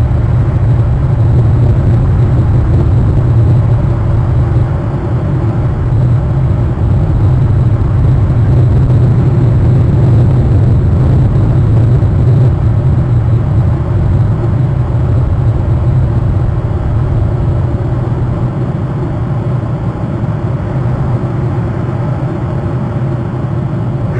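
Steady low rumble, without distinct events.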